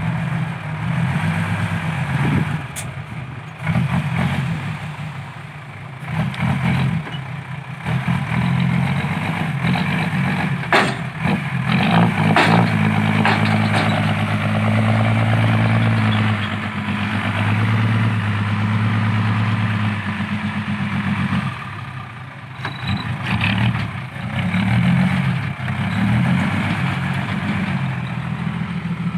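An Isuzu dump truck's diesel engine runs under load, its revs rising and falling as it tips and pulls away through loose sand, then held high and steady for several seconds in the middle. A few sharp knocks come in the first third.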